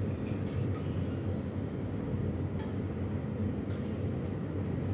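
Steady low background rumble with a few light clinks of small stainless steel cups and plates, several in the first second and more later, as gravy is poured from the cups onto rice.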